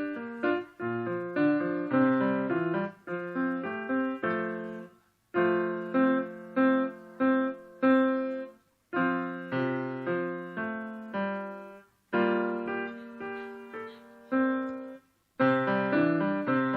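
Solo piano playing a simple piece in short phrases of single notes and chords, with a brief pause after each phrase, four times.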